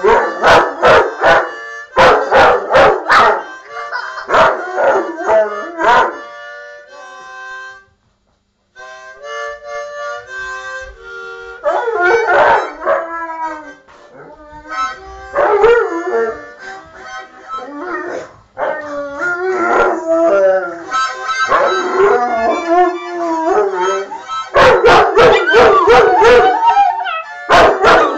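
A harmonica blown in loud, uneven chords while a Rottweiler and a fox terrier howl along to it in wavering, rising and falling howls. The sound cuts out briefly about eight seconds in.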